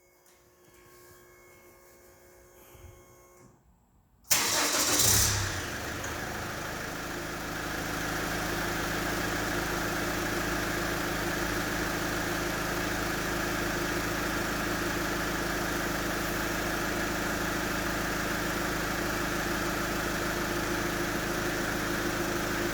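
Car engine started through a newly fitted push-button smart-key start system: after a few quiet seconds it cranks and fires about four seconds in, runs louder for a second or so, then settles into a steady idle.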